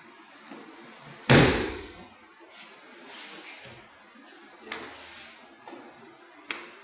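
A body landing on the dojo mat from an aikido throw, one heavy thud about a second in, followed by quieter thumps and rustles and a sharp slap near the end.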